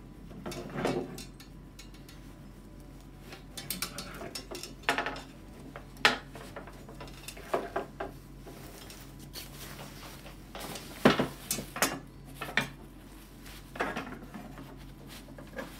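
Metal canopy ribs of an Emmaljunga Mondial De Luxe pram hood clinking and scraping as they are handled and fed into the hood's fabric sleeves. The clinks are irregular, the sharpest about six seconds in and about eleven seconds in.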